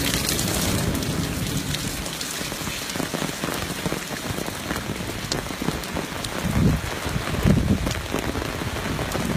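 Steady rain falling on wet paving and ground, with a few low thumps about two-thirds of the way through.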